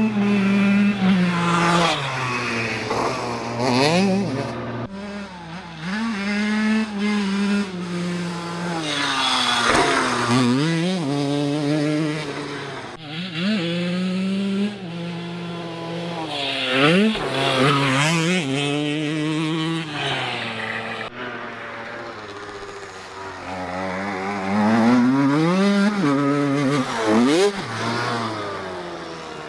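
Single-cylinder two-stroke engine of a Suzuki RM 80/85 motocross bike being ridden hard, its pitch climbing through each gear and dropping off again and again as the throttle opens and closes.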